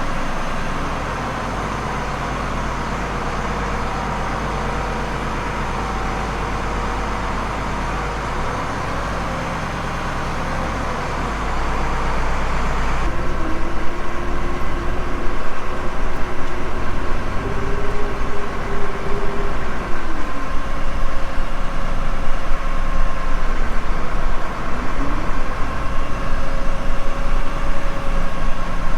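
Tractor engine running steadily. About halfway through the sound changes abruptly and becomes louder and more uneven, with a faint whine that rises and falls.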